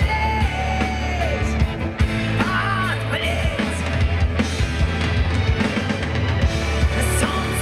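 Live rock band playing through an outdoor stage PA, heard from within the crowd: steady bass and drums with a sung melody line over them.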